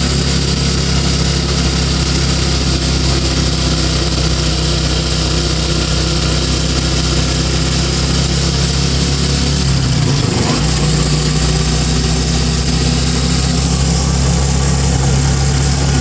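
Tricycle (motorcycle with sidecar) engine running steadily while under way. About ten seconds in, the engine note briefly dips and wavers, then settles again.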